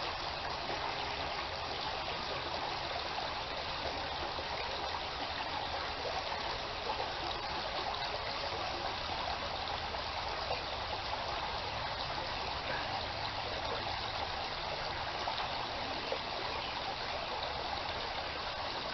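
A small creek running steadily, its water trickling and rushing in an even wash.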